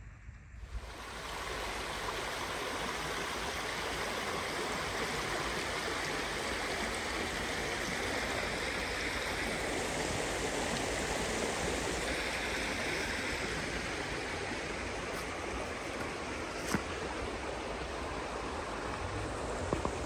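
Water of a small stream running steadily, a continuous rushing wash that starts about a second in. One brief click about three-quarters of the way through.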